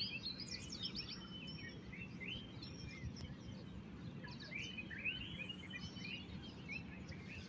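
Birds chirping in quick, varied phrases, in a busy spell at the start and another about five seconds in, over a low steady background noise.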